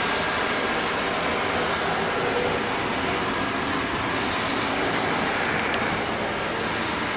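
Steady, even rushing noise with no distinct events, like machinery or air moving continuously in the background.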